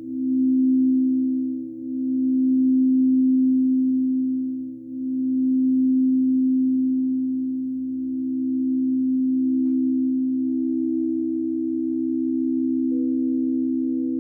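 Singing bowls ringing together in a sustained drone of pure tones that swell and fade in slow waves, with a further tone joining near the end.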